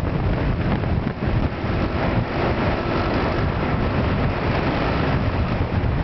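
Wind rumbling and buffeting on the microphone of a moving vehicle on the road, with engine noise underneath; a faint steady engine tone comes through in the middle.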